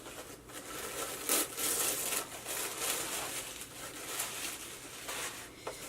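Packaging wrap crinkling and crackling as a wrapped product is handled and unwrapped, in a run of irregular small crackles.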